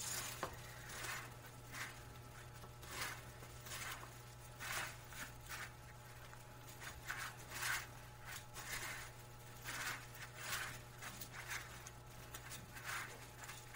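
Chicken pieces pressed and turned by hand in a bowl of dry breadcrumbs: irregular soft rustling and scraping of the crumbs, over a steady low hum.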